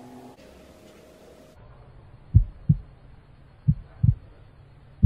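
Slow heartbeat sound effect: pairs of low thumps, lub-dub, about one beat every 1.3 seconds, starting about two seconds in. Before it come faint steady tones.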